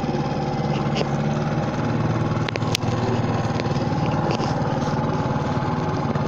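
4 hp Tohatsu four-stroke outboard motor running steadily at cruising speed, pushing a square-back canoe. Two sharp knocks about halfway through.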